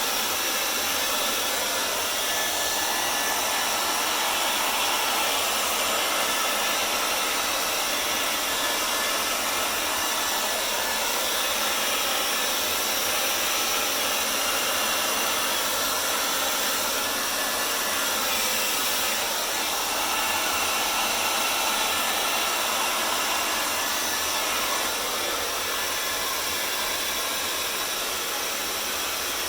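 Hairdryer running steadily, blowing air to spread fluid acrylic paint across a canvas.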